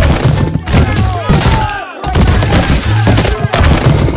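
Dubbed crash sound effects: a rapid series of sharp bangs like gunfire as the toy cars hit the box, with music underneath.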